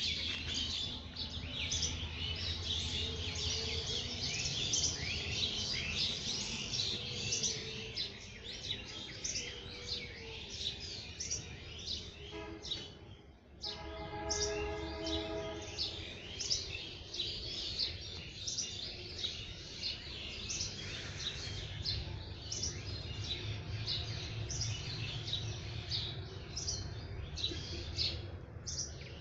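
A dense chorus of small birds chirping and twittering continuously. It breaks off briefly near the middle, followed by a steady pitched sound lasting about two seconds.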